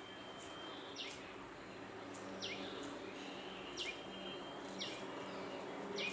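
Birds calling at a feeding spot: a sharp, short, downward-sweeping call repeats about once a second over a faint background.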